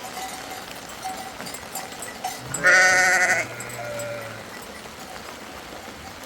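A single loud, quavering bleat from a sheep or goat kept by a nomad camp, lasting under a second about two and a half seconds in, followed by a fainter, lower call.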